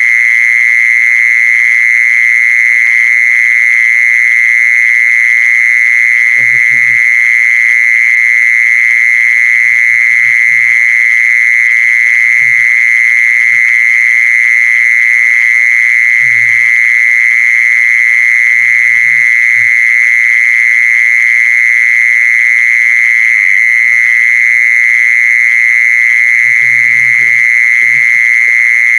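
Steady, unbroken high-pitched trill of the singing insect called 'jee son' in Thai. Faint short low sounds come and go beneath it.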